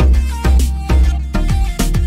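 Background music with a heavy bass beat and percussion, about two beats a second.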